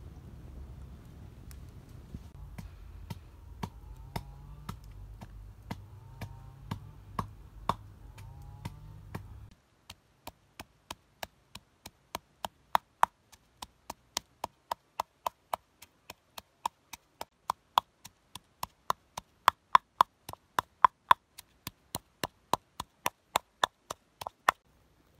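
Wooden pestle pounding red chillies and coarse salt in a clay mortar: a steady run of sharp knocks, about two or three a second, getting louder partway through. For the first third the knocks are fainter, under a low outdoor rumble that cuts off suddenly.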